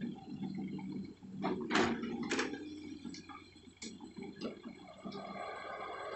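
Hydraulic excavator working, its engine running steadily under a few sharp metallic clanks and knocks, about four in the space of three seconds.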